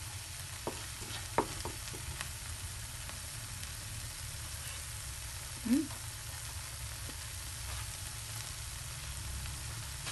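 Tuna, onion and chili frying in a pan with a steady sizzle; a wooden spatula knocks against the pan a few times in the first two seconds, then the food fries on untouched. A short rising squeak about halfway through.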